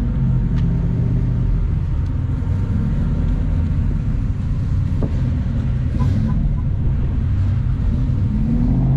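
Steady low rumble of car engines running.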